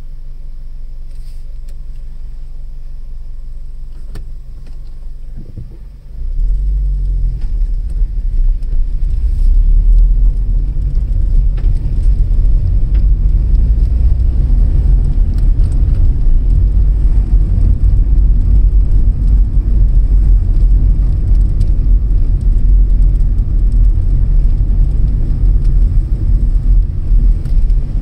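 Inside a car: the engine idles with a steady low hum, then about six seconds in the car pulls away and a much louder low rumble of engine and road noise takes over as it drives on.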